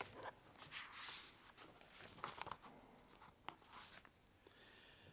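Faint rustling and shuffling with a few soft knocks as a congregation gets to its feet in the pews.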